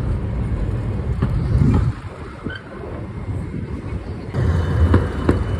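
Articulated Amsterdam tram passing: a low rumble of steel wheels on rails with a few sharp clicks. The rumble drops about two seconds in as the tram goes by, and a louder rumble starts abruptly near the end.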